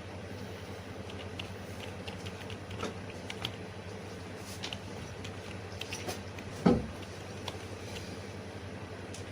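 Steady low electrical hum with scattered light clicks, and one louder thump about two-thirds of the way through.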